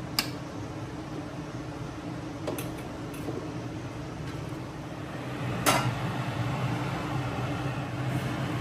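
Cooking utensils knocking against a pot three times, the loudest about six seconds in, over a steady low hum.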